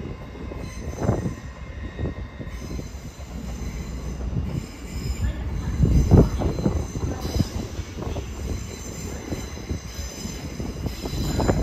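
A train moving over the rails, its wheels squealing in thin high tones over a low rumble, with irregular clunks, the loudest about halfway through.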